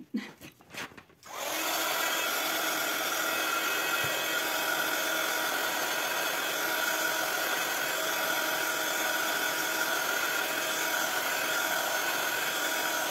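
A few light knocks, then about a second in a handheld craft heat tool switches on and runs steadily with a whirring fan noise, drying the freshly coloured ink on a card.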